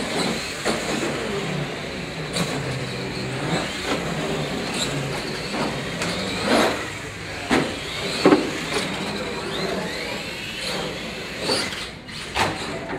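Radio-controlled monster trucks racing on a concrete floor: the electric motors whine up and down in pitch as they accelerate and brake, with tyre noise and several sharp knocks and clatters as the trucks land off ramps. The loudest knock comes about two-thirds of the way through.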